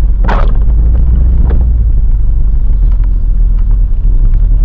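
Chevrolet K2500 pickup truck rolling slowly, a steady low rumble heard from inside the cab. Two brief hissing noises come about a quarter second and a second and a half in.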